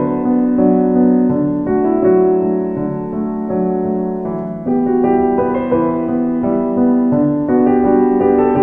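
Background piano music with slow, held notes and chords.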